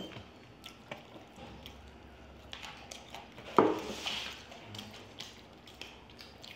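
Metal forks clinking and scraping on aluminium foil plates of noodles, with small wet eating sounds, and one louder sound about halfway through.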